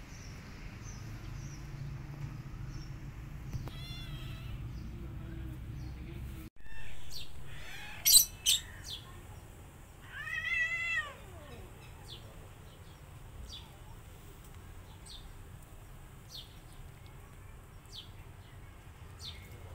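Cat meowing: a short, faint mew about four seconds in, then a louder meow of about a second near the middle that falls in pitch at the end. Two sharp clicks just after eight seconds are the loudest sounds, and faint scattered ticks follow.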